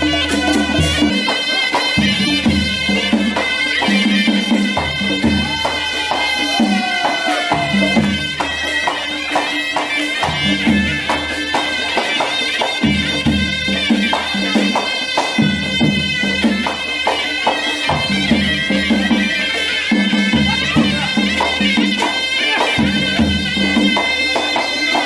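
Nepali folk music: a reedy wind-instrument melody over a rhythmic drum beat, with no singing.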